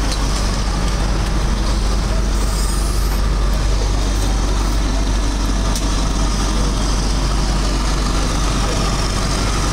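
Fire apparatus's diesel engine running steadily at the fireground, a constant low rumble with a sharp click about six seconds in.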